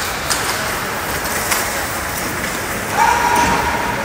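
Ice hockey in play: a steady hiss of skates on the ice with a few sharp clacks of stick and puck. A steady high tone begins about three seconds in.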